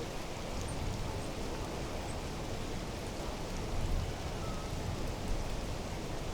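Mountain lakeside nature ambience: a steady rushing wash of noise with an uneven low rumble underneath and a few faint high ticks.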